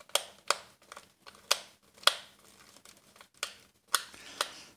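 Ground-down screwdriver turning a triangle-head screw out of a plastic hair dryer handle: irregular sharp clicks of metal on plastic, a few seconds apart or closer, with light scraping between them.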